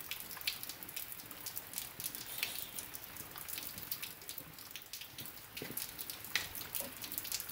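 Rain pattering on surfaces close by, with many small irregular ticks of drops over a steady hiss.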